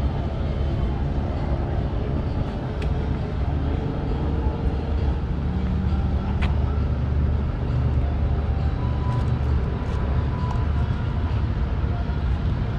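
Low, steady rumble of a passenger ship's diesel engines as the fast ship KM Gregorius backs slowly away from the pier, with faint voices in the background.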